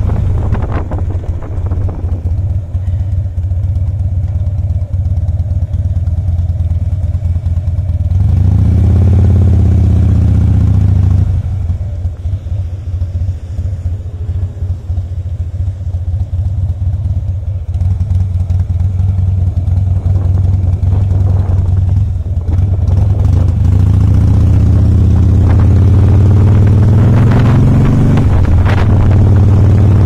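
2007 Harley-Davidson Softail Custom's V-twin engine running under way. It revs up and eases off about a third of the way in, runs lighter for a while, then climbs through the revs again and drops suddenly near the end, as on a gear shift.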